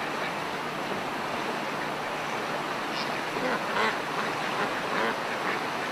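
Ducks quacking in short repeated calls over a steady rushing background, with a burst of quacks about three and a half seconds in.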